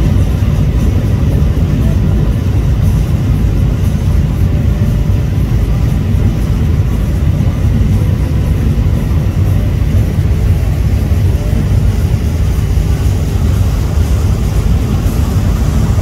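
Steady low drone of a small excursion motor ship's engine running under way, with a fainter rush of water and air over it.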